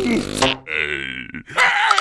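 Wordless cartoon character vocal sounds: a wavering groan-like voice, a breathy hiss about half a second in, then a loud buzzy cry with a fast pulsing tone from about a second and a half.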